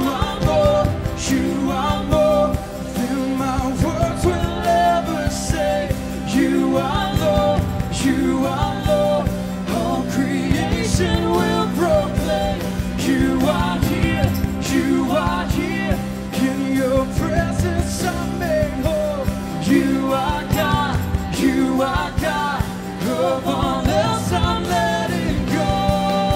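Live worship band playing a contemporary worship song: a singer's voice over strummed acoustic guitar, drums with cymbals, and the rest of the band, continuous and full.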